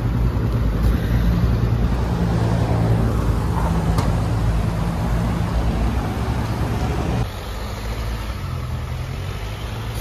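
City street traffic with a motor vehicle's engine running close by, a steady low hum that drops away about seven seconds in, leaving the quieter noise of passing cars.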